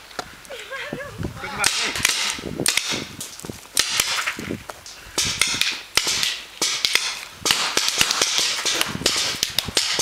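Paintball markers firing: rapid strings of sharp pops in bursts, each volley lasting a fraction of a second to about a second, with short pauses between.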